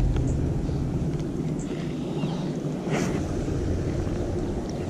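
Steady low wind rumble on the microphone, slowly easing, with a brief sharp click about three seconds in and a few faint high chirps.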